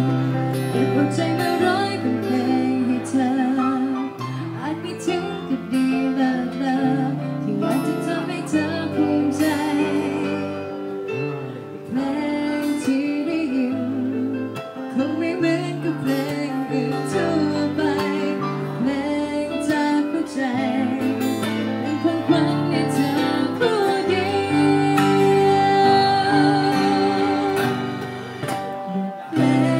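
A woman sings into a handheld microphone over guitar accompaniment, holding some notes with vibrato.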